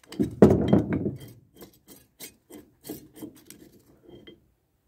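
Rusted swivel base of an old vise being turned by hand, scraping and grinding metal on metal. A heavy scrape in the first second is followed by a run of short rasping strokes. The dry, rusty joint needs oil.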